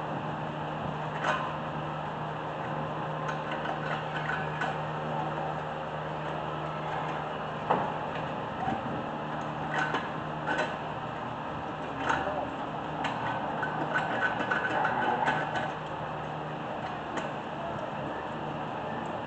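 An electric fan runs with a steady hum, under intermittent metallic clinks and rattles of tools and brake parts as the front brakes are taken apart. A sharp clink comes about eight seconds in, and a run of rattling follows about two-thirds of the way through.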